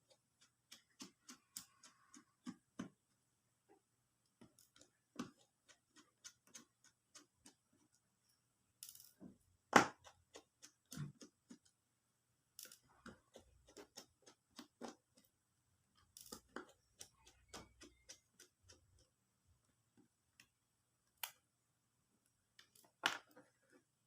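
Scattered small clicks and taps of tools on a smartphone's plastic and metal parts as it is being taken apart, at irregular spacing, with one sharp click about ten seconds in.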